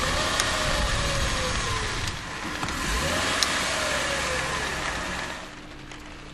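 Mercedes test car driving, heard from inside the cabin: steady road and tyre noise with an engine note that rises and falls twice. It turns quieter about five and a half seconds in.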